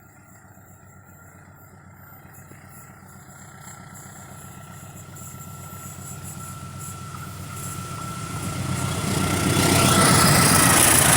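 A diesel-electric locomotive-hauled passenger train approaching, its engine rumble and wheel-on-rail noise growing steadily louder until it is passing close by near the end. A thin steady whine runs over it and dips slightly in pitch as the train arrives.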